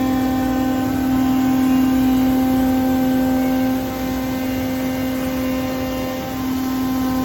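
CNC router spindle running at about 18,000 RPM, a steady whine with evenly spaced overtones over a noise bed. It gets slightly quieter about four seconds in.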